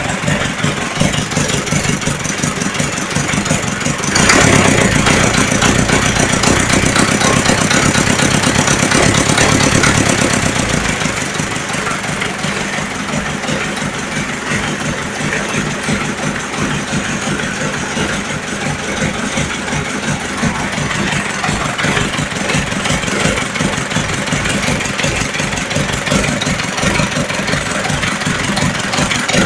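Engine running just after its oil centrifuge was repaired, with its oil pressure being checked. It runs at idle, is revved up and louder about four seconds in, and settles back to a steady idle around eleven seconds.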